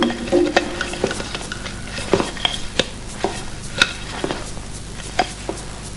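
Scattered sharp clicks and taps at irregular intervals, about a dozen, over a steady hiss of an old film soundtrack.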